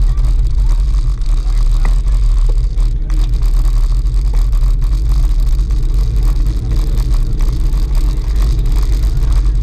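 Wind buffeting the microphone of a camera mounted on a moving bicycle: a steady, heavy low rumble.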